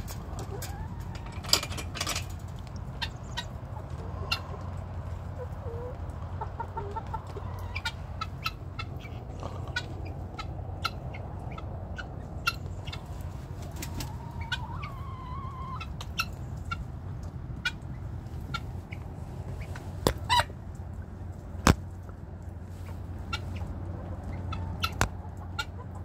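A flock of guinea fowl and white turkeys feeding, giving short soft calls and clucks, with many sharp taps and clicks scattered throughout and a few louder cracks, over a steady low rumble.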